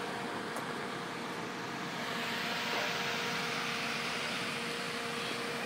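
Steady street background noise with a faint, even hum underneath and no distinct events.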